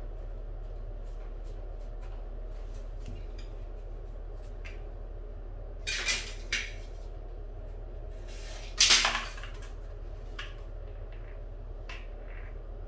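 Hand tools being handled on a ceramic tile floor: a few brief knocks and clatters of hard objects, the loudest about nine seconds in, with faint small clicks between, over a steady low hum.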